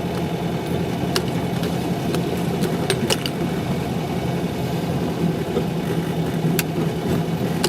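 VW Beetle 1600's air-cooled flat-four engine running steadily, heard from inside the cabin, with a few brief sharp clicks.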